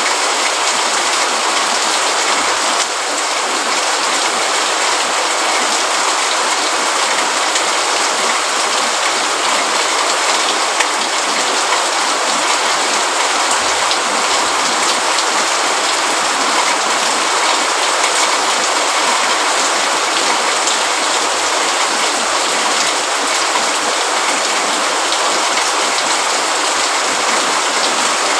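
Steady, heavy rain falling, an even hiss of drops with a fine patter through it, and a brief dip in level about three seconds in.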